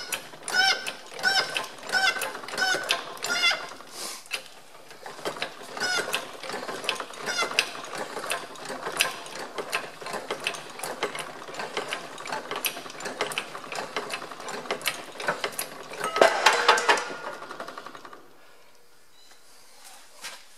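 A 50-ton hydraulic press forcing a Ferguson TE20 rear axle shaft out of its bearing housing: dense, irregular clicking and creaking of metal under load, with short high squeaks in the first few seconds. A louder burst comes about sixteen seconds in, after which it goes much quieter.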